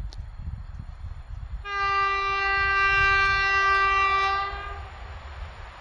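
Horn of an over-60-year-old locomotive on the approaching train, sounding one steady blast of about three seconds that starts nearly two seconds in. A low rumble runs underneath.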